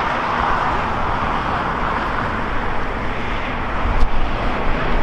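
Twin-engine jet airliner, an Airbus A321neo, at takeoff power: a steady roar of its engines as it lifts off and climbs out. A short tick about four seconds in.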